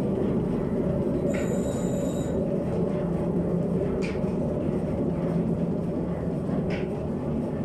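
Old mill's machinery running with a steady, even rumble, with a short high ringing about a second and a half in.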